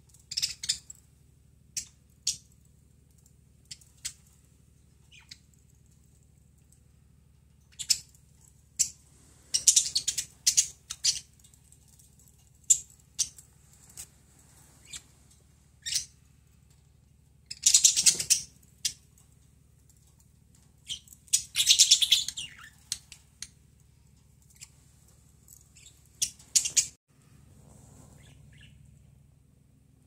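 Pet budgerigars in a cage chirping in short, scattered high-pitched calls, bunched most thickly about ten, eighteen and twenty-two seconds in.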